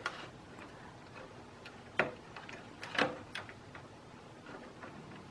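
Small sharp clicks and ticks of tiny plastic front-panel connector plugs being handled and pushed onto the motherboard's header pins, the two loudest about two and three seconds in.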